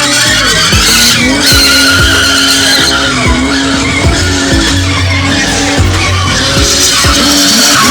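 BMW E30 spinning: tyres squealing and screeching continuously under a revving engine, with a bass-heavy music track and a steady thumping beat over it.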